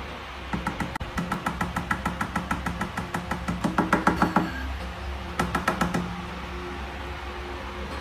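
A quick run of light taps, about five a second, lasting a few seconds, followed by a shorter run of the same taps about a second later.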